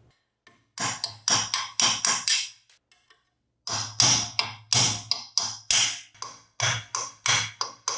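Hammer blows on metal parts, a quick run of sharp strikes at two to three a second, with a pause of about a second a third of the way in. This is typical of knocking apart or tapping out the rusty parts of an old disc grinder during restoration.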